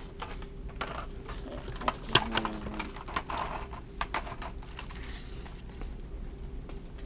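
Shopping cart rattling and clicking as it is pushed along, with irregular knocks, the loudest about two seconds in.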